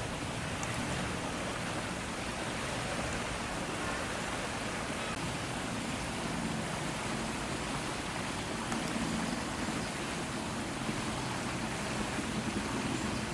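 Strong wind blowing, a steady rushing noise with no breaks.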